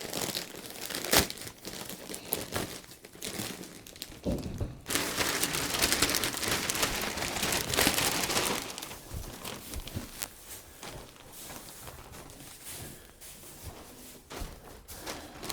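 Plastic packaging crinkling and tearing, with rustling and a few sharp knocks: one knock about a second in, then a long stretch of rustling from about five to nine seconds in.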